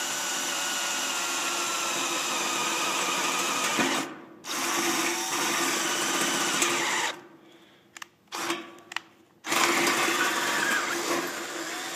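Electric drill with a quarter-inch bit boring through a trailer's hard sheet metal, running in three long spells with short pauses and a couple of quick blips of the trigger between them.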